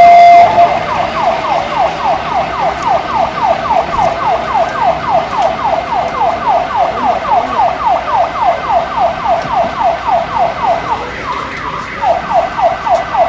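Ambulance siren in yelp mode: after a brief held tone at the start it switches to rapid pitch sweeps, about four a second. It stops for about a second near the end, then starts again.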